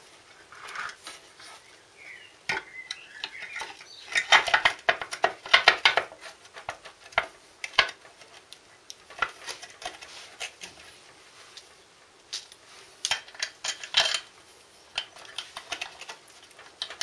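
Light metal clinks and rattles in irregular clusters, busiest about a quarter to a third of the way in and again later: a motorcycle's front sprocket cover and its bolts being handled and fitted back onto the engine casing.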